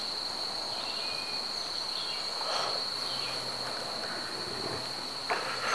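Insects chirring steadily on one unbroken high note, with faint rustling in the middle and again near the end.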